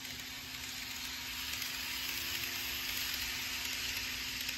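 N gauge model train of a JR West 223 series 'Mori no Kyoto' set running on the layout track: a steady hiss of its wheels on the rails and its motor, which swells as the train comes close and passes.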